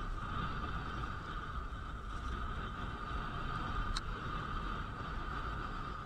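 Strong wind buffeting the camera microphone, mixed with the steady hiss of skis sliding up a drag-lift track on wind-packed snow. A single sharp click comes about four seconds in.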